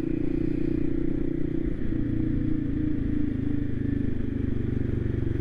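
Voge 300 Rally's single-cylinder engine running steadily as the motorcycle rides along, heard from on the bike; the engine note drops and changes about two seconds in, then holds steady again.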